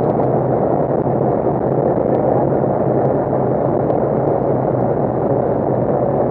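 Side-by-side utility vehicle driving on a gravel road: steady engine drone and tyre rumble heard from inside the open cab, with a few faint ticks.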